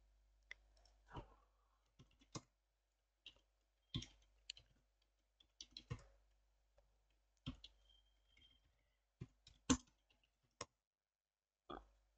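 Faint, irregular clicks of computer keyboard keys being typed, a dozen or so scattered keystrokes with short gaps between them.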